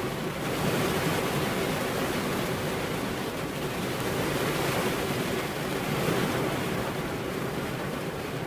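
Steady heavy rain, a dense even hiss that swells a little about a second in and again near six seconds.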